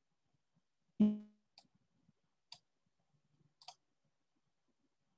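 A single sharp knock with a short low ringing tail about a second in, followed by three or four faint, sharp clicks.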